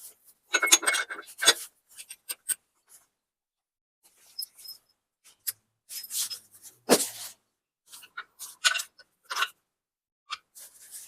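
Irregular clinks and short scraping sounds of metal parts being handled, coming in separate bursts with gaps between them; the loudest comes about seven seconds in.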